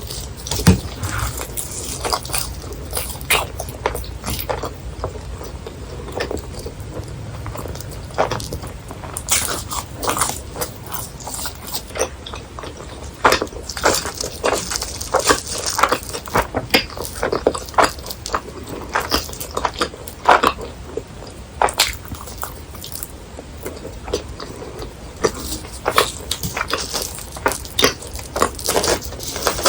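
Close-miked biting and chewing of crispy deep-fried snack food, with irregular crunches throughout the mouth noise.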